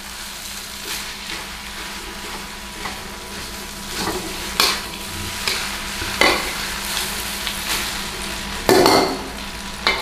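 Egg fried rice sizzling in a stainless steel pan as it is stirred with a metal spatula. The spatula scrapes and clanks against the pan several times, loudest near the end.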